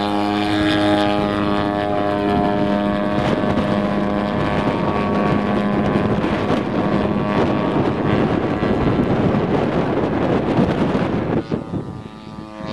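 Engine of a large radio-controlled model airplane (TVN's RC Super Hauler) running up to full throttle and holding a steady high-pitched drone through its takeoff and climb, with wind on the microphone. About eleven seconds in the sound drops sharply and a quieter engine tone follows.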